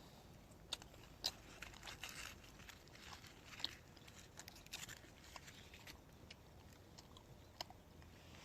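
Faint scattered clicks and short scraping, crunching sounds, sparse and irregular.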